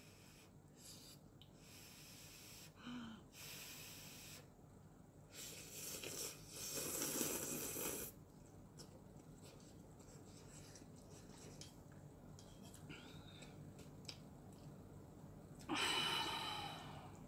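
A person slurping hot instant ramen noodles: several noisy slurps, the longest and loudest about six to eight seconds in, another near the end.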